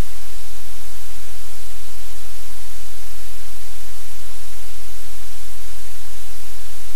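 Loud, steady hiss like static that does not change, with a low hum underneath.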